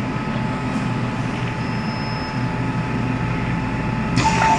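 MTR Island Line M-Train in motion: a steady rumble of wheels and running gear with a faint steady whine. About four seconds in, a brighter sound with clear stepped tones comes in over it.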